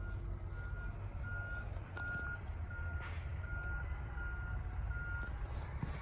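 A garbage truck's backup alarm beeping in an even rhythm, about three beeps every two seconds, over the low steady rumble of the truck's engine. The beeping stops about five seconds in: the truck has finished reversing.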